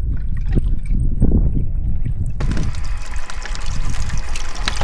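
Wind rumbling on the microphone with water splashing and trickling. About halfway through, a steady hiss suddenly sets in.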